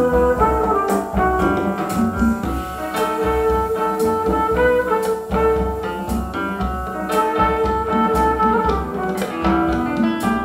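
Instrumental passage of a song with no singing: piano or keyboard chords over drums and bass, at a steady beat.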